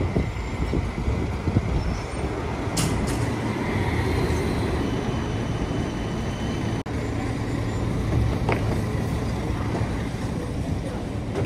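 Modern low-floor tram pulling into a stop and standing with its doors open: a steady low rumble, with a faint high whine for the first few seconds. A couple of sharp clicks are heard, one about three seconds in and one near the middle.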